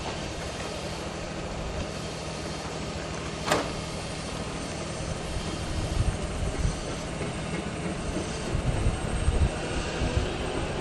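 Train rumbling slowly over the rails at a level crossing. The low rumble grows heavier past the middle, and there is a single sharp metallic clank about three and a half seconds in.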